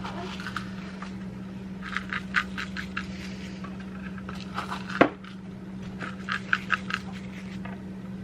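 Thick sweet potato and oat mixture being stirred and mashed by hand in a bowl: scraping with clusters of light clinks against the bowl, and one sharper knock about five seconds in.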